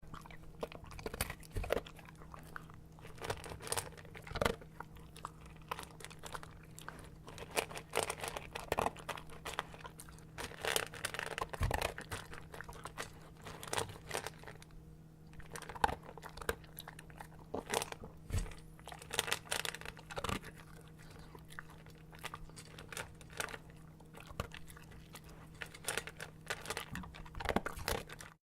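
A dog eating dry kibble from a bowl: irregular crunching and chewing with sharp clicks, and a faint steady hum underneath.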